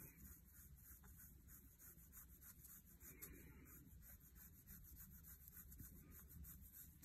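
Faint rubbing of a soft paintbrush's bristles scrubbing over paper, a few strokes a second, as loose gold foil is brushed away from the gilded areas.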